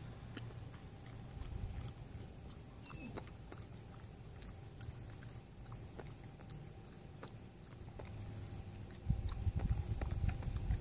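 A beagle chewing food, a run of irregular crisp clicks and crunches. About nine seconds in, a louder low rumble comes in.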